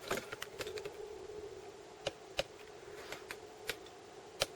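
Scattered light clicks and taps of handling, a dozen or so at uneven intervals, the sharpest about two and a half seconds in and near the end, over a faint steady hum.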